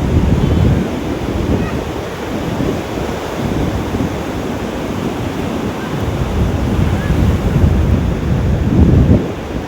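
Ocean surf washing onto a sandy beach, with wind buffeting the microphone in low rumbling gusts, the strongest just before the end.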